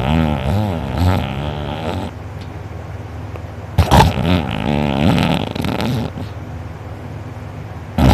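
A sleeping person snoring very loudly with the mouth open, the soft palate and uvula fluttering. Each snore starts abruptly and rattles for about two seconds, coming about every four seconds with a quieter breath between.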